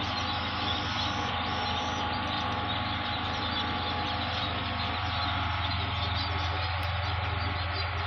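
Engine running at a steady, constant speed: an unbroken hum that holds its pitch throughout.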